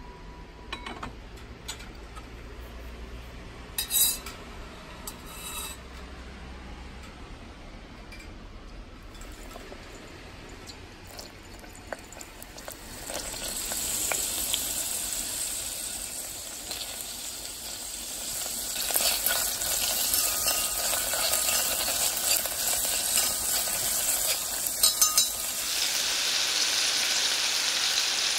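Chopped green onions sizzling in hot oil in a mini cast-iron gamasot pot: a frying hiss starts about halfway through and grows louder a few seconds later. A couple of light clinks come before it.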